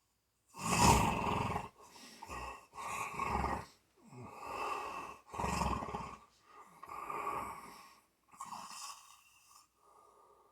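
Snoring: a run of about eight rough breaths, one every second or so, the first the loudest.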